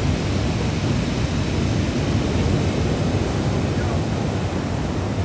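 Sea surf rushing steadily, with wind rumbling on the microphone.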